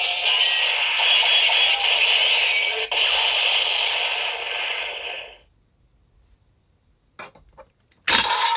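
DX Zaia Thousandriver toy belt's speaker playing its electronic finisher sound effect, a dense synthetic blast that cuts off abruptly about five seconds in. A few faint clicks follow, then a sudden loud noise near the end.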